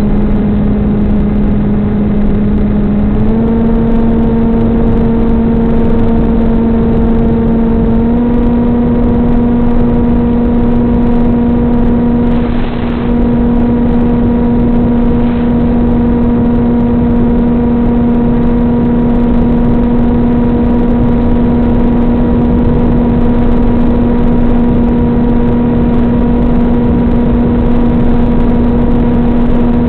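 Electric motor and propeller of a Stratosurfer RC plane in flight, heard through its onboard camera as a steady whine over rushing wind. The pitch steps up twice in the first several seconds as the throttle is raised, then holds steady.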